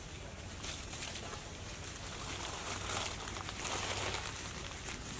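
Outdoor ambience: a steady hiss with scattered faint crackles of dry leaf litter, and a louder rustle about three to four seconds in.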